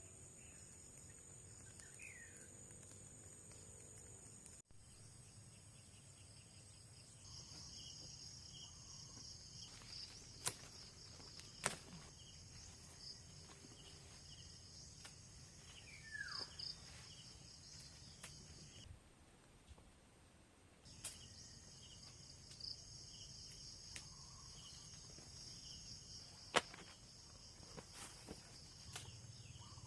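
Insects trilling in a steady high-pitched chorus, with a few sharp clicks (the loudest near the end) and an occasional short chirp.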